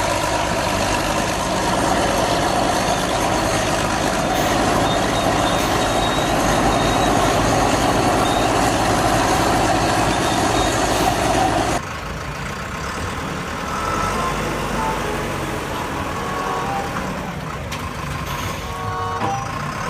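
Bulldozer engine running loud and steady. About twelve seconds in, the sound drops in level and short high tones come in over it.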